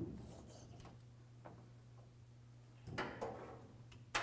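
A few short knocks and crinkles from foil-faced butyl sound-deadening mat being pressed by hand against a car's steel roof panel: one at the start, a pair about three seconds in and a sharp one at the end, over a low steady hum.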